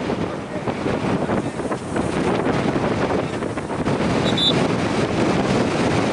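Wind buffeting the camera microphone, a loud steady rumbling noise, with a short high-pitched whistle about four seconds in.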